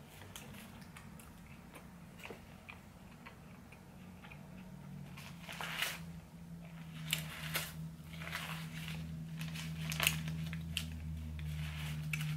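Close-up sounds of a person chewing a cheeseburger with mouth smacks, along with sharp crinkles as the burger is handled in its paper wrapper, getting louder and more frequent from about halfway. A low steady hum grows underneath from about the same point.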